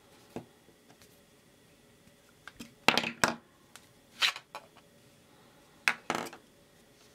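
Hard plastic clacks and taps as 3D-printed centrifuge adapter tubes are handled and knocked together and a test tube is pulled out of one. There are several sharp knocks, the loudest a pair about three seconds in.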